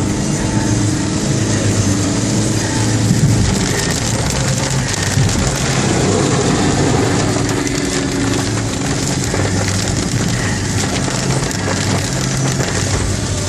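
Vehicle engines running with a low steady hum under a continuous hiss of heavy rain and water on a flooded road.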